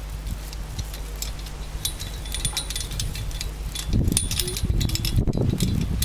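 Glowing charcoal embers crackling in a steel fire bowl: scattered sharp clicks and tinkling ticks. A louder, rougher low rumble comes in about four seconds in.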